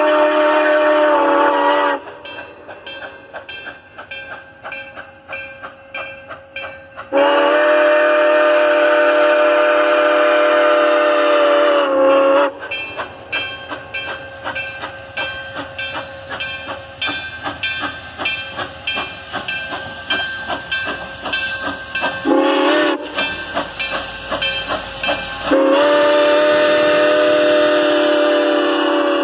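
Steam locomotive 4960's chime whistle, a 2-8-2 Mikado, sounding the grade-crossing signal: long, long, short, long, each blast a loud steady chord that sags slightly in pitch as it starts and stops. Between the blasts the locomotive's bell clangs in steady, evenly spaced strokes.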